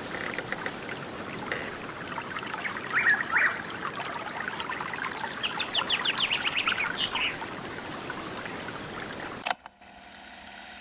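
Water trickling with birds chirping over it, including a quick run of rising chirps midway. It cuts off suddenly near the end, leaving a faint steady hum.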